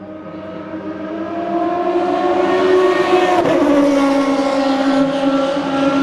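Benetton B193 Formula One car's Ford V8 at speed, rising in pitch as it approaches and drops sharply in pitch as the car passes about three and a half seconds in, then running on steady and loud as it goes away.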